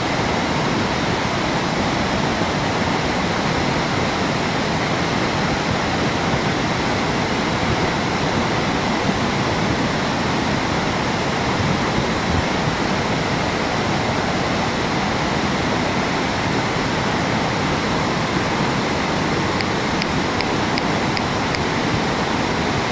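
A fast river in spate, heavy with silt, rushing past in a loud, steady wash of water noise.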